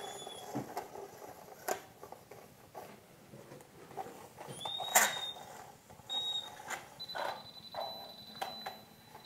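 Bosch handheld wall detector sounding high electronic beeps, then a steady continuous tone from about seven seconds in, as it is moved along a wire in the wall. A few soft knocks from footsteps and handling.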